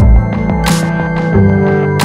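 Electronic background music: sustained synth chords over a beat of deep kick drums and sharp high percussion hits.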